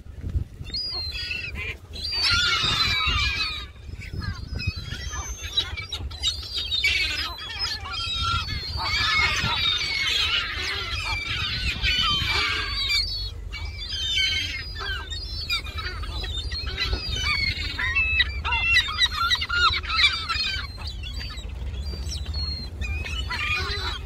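A flock of herring gulls calling over one another, many wavering high calls overlapping in waves that swell and ease, with wind rumbling on the microphone.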